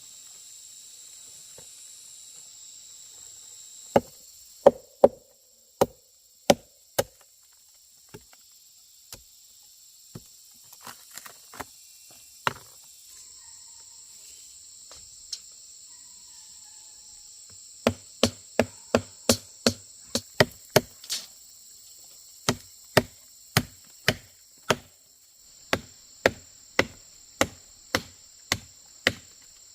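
Sharp blows of a hand tool striking wood: a few irregular strikes, then a steady run of about two to three strikes a second in the second half. Insects drone steadily behind.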